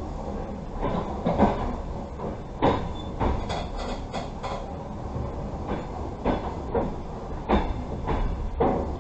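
Passenger train carriage rolling on the rails: a steady low rumble broken by irregular sharp knocks and clacks from the wheels and running gear.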